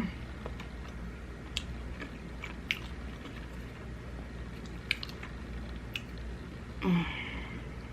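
Close-miked chewing and biting of food, with occasional sharp wet mouth clicks. A short pitched vocal sound comes near the end.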